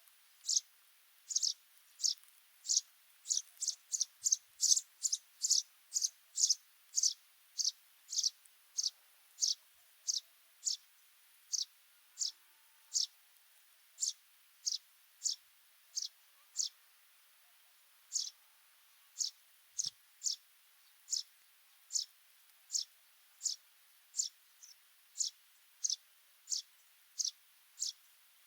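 Sudan golden sparrow calling: a long series of short, sharp chirps, each falling in pitch, about two a second, with a pause of about a second and a half partway through.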